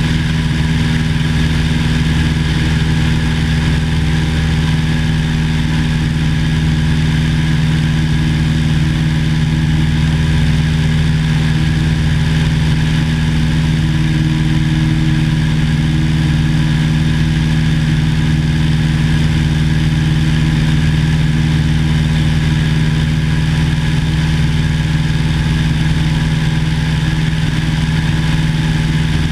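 1950 Cessna 170A's six-cylinder Continental engine and propeller running steadily at constant power, an even drone with a strong low hum.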